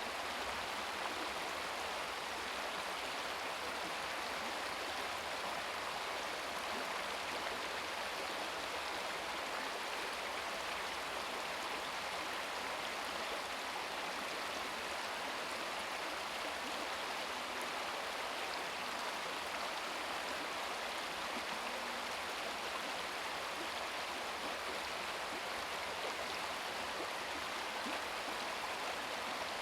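Shallow brook babbling over stones: steady, even rush and gurgle of running water.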